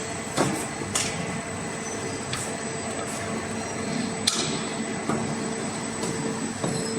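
CNC arch bending machine for aluminium profiles running: a steady motor hum with a few sharp clicks or knocks, the loudest about four seconds in.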